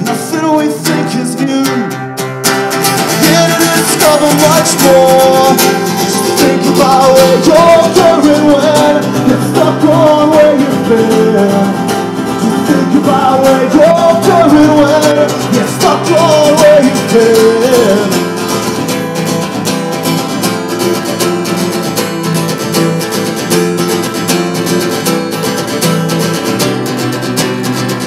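A live song: a singer's voice over acoustic guitar. The voice drops out about two-thirds of the way through, leaving the guitar playing on its own.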